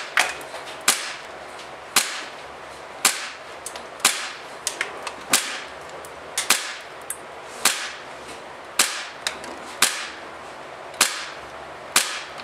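KWA M9 gas blowback airsoft pistol firing about eleven single shots, roughly one a second, each a sharp crack, with fainter clicks between. The shots run about 260 to 270 feet per second on a can of gas that is running low.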